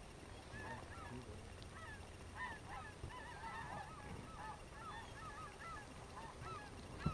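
A flock of wild geese calling, many short high yelps overlapping in a continuous chatter. A single knock near the end.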